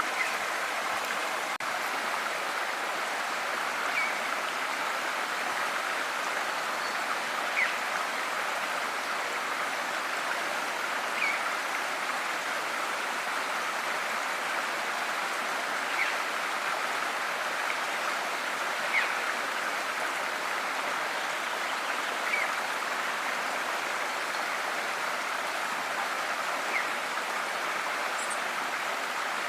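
A river flowing with a steady rush of water, with a brief high note standing out every three to four seconds.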